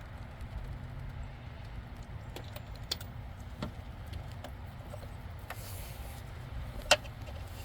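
Scattered light metallic clicks and taps of hand tools working on spark plugs in an engine bay, with one sharper click about seven seconds in, over a low steady rumble.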